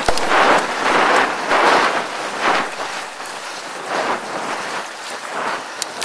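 Mongoose Tyax mountain bike's tyres rolling over a dry dirt road, with wind rushing over the action camera's microphone in waves that swell and fade about once a second, and a few sharp ticks of grit.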